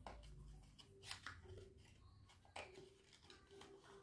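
Faint handling of a small cardboard box being opened by hand: a few soft clicks and rustles of card and packaging.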